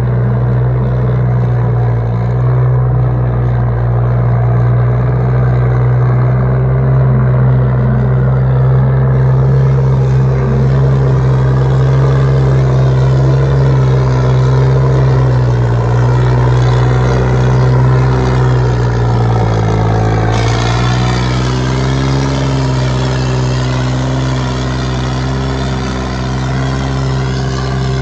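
Diesel tractor engine running hard at steady high revs, close and loud. About two-thirds of the way in its pitch dips briefly, then picks up again.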